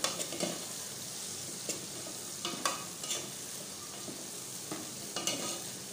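Sliced onions sizzling in hot oil in a steel pot, stirred with a spoon that scrapes and knocks against the pot a few times.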